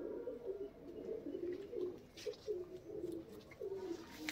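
A flock of Pakistani high-flyer domestic pigeons cooing, several low coos overlapping one another.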